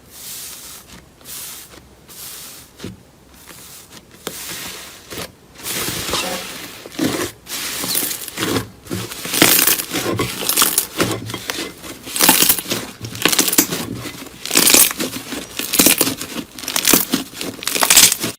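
Slime being squeezed and stretched: repeated bursts of crackling and popping, getting louder and closer together after a few seconds.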